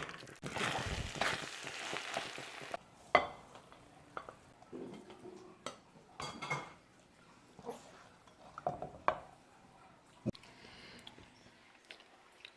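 Rice tossed into a hot stir-fry pan, sizzling for about two seconds, followed by scattered clinks and knocks of a utensil stirring and scraping in the pan.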